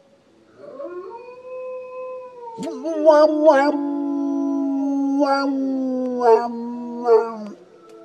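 Dog howling: one long drawn-out howl that starts softly and grows louder about two and a half seconds in, with several short sharp cries breaking in over it before it stops near the end.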